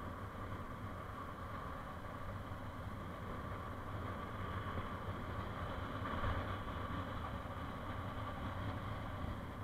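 Steady running noise of a vehicle driving slowly on a concrete road: a constant low engine hum under an even road and tyre noise, swelling slightly about six seconds in.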